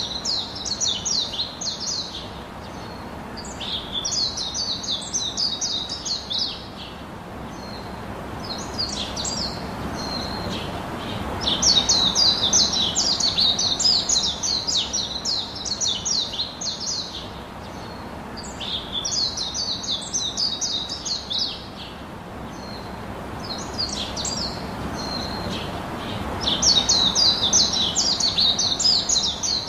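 Small birds chirping in fast, high trills that come in bursts of two to three seconds with short pauses between them. Beneath them runs a fainter steady hiss of bitter gourd slices frying in oil in a wok.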